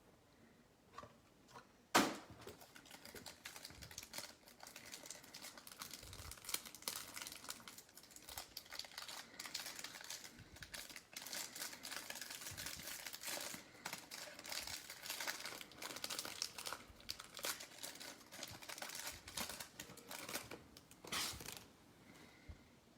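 Plastic-foil trading card pack wrapper being torn open and crinkled, a dense crackling that goes on for most of the time. A single sharp knock comes about two seconds in.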